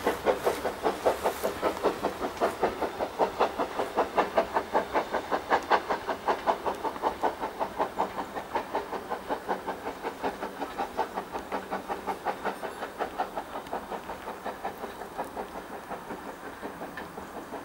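Steam locomotive's exhaust beats, a steady rhythm of about four chuffs a second, fading slowly as the train draws away.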